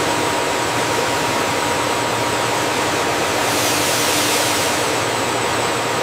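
Steady industrial machinery noise from a rubber processing line: an even hiss spread across the range, with a low hum and a couple of faint, thin steady tones, holding at one level throughout.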